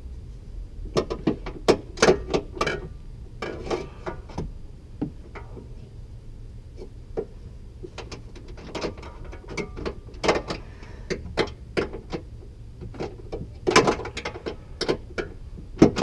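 Irregular metallic clanks, knocks and scraping from a car's steel exhaust pipes being worked loose under a 2016 Mustang GT, coming in short clusters of hits.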